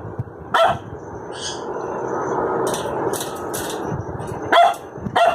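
Shih Tzu barking in short, sharp barks: one about half a second in and two close together near the end, with higher-pitched chirps in between.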